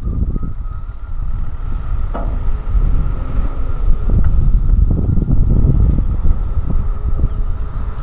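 Hyundai Trago 25-tonne dump truck's diesel engine running as it pulls forward with its tipper body raised, spreading dumped soil. It makes a heavy low rumble, with a steady thin whine above it.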